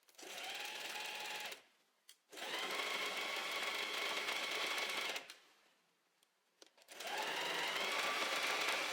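Domestic sewing machine stitching jersey fabric in three runs, about one and a half, three and two seconds long, with short pauses between; each run starts with the motor speeding up and then holds steady.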